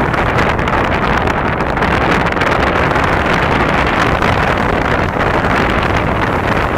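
Steady, loud rush of sea wind buffeting the microphone, with no distinct pops or whistles.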